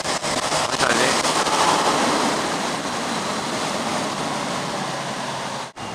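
Wind rush and tyre spray from a Kawasaki Z1000SX at motorway speed on a wet road, with the engine humming steadily underneath. The rush swells between about one and two seconds in and cuts out for an instant near the end.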